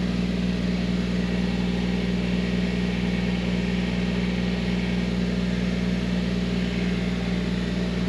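An engine running steadily at a constant speed, with a strong even hum and no change in pitch.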